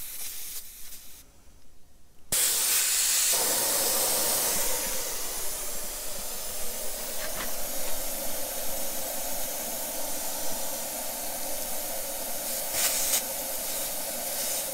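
Air hissing out of a caravan's Toyo off-road tyre through a valve-stem tyre deflator, letting it down to 30 psi. The hiss starts suddenly about two seconds in and then holds steady, with a faint steady tone under it.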